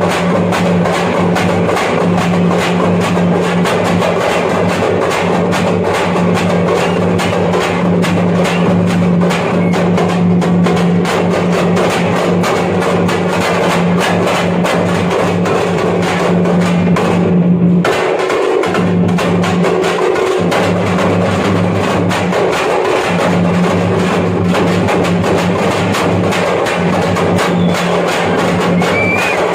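Thappattam (parai) frame drums beaten in a fast, dense, continuous rhythm over a steady low drone, with a brief break about two-thirds of the way through.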